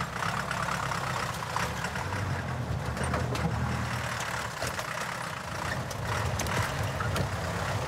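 Old KIA truck's engine running at low speed as the truck crawls over a rutted mud track, the engine note swelling and easing, with scattered knocks and rattles.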